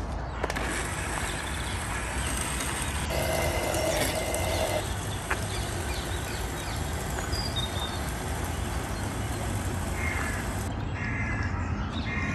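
Countertop blender running at full speed, grinding soaked dried red chillies, coconut, garlic and whole spices with a little water into a wet masala paste. It runs steadily and its motor cuts off near the end.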